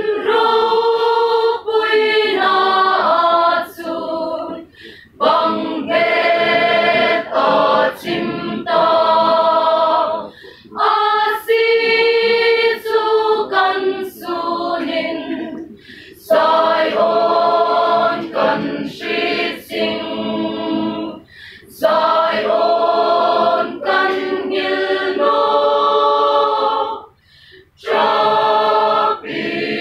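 Mixed choir of women and men singing in phrases of a few seconds each, separated by short breath pauses.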